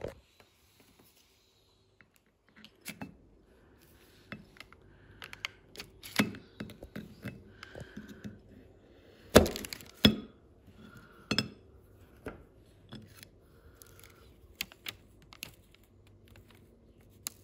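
A knife cutting through a slab of vanilla fudge marbled with chocolate, knocking against the plate beneath. A run of cracks and clicks, the two loudest about nine and ten seconds in.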